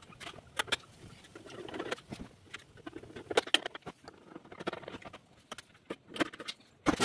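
Irregular small clicks, taps and scrapes of a screwdriver and hands working on the kiln's sheet-metal control box.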